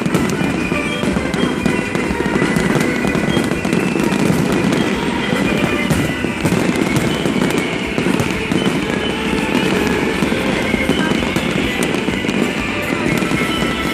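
Aerial fireworks going off in a dense, continuous barrage of booms and crackles, with no break.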